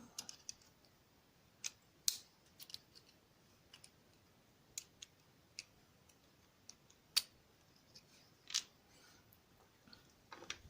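Small, sharp metallic clicks at irregular intervals, a dozen or so, as a DOM ix5 KG dimple euro cylinder is taken apart by hand: tools and small lock parts knocking against each other.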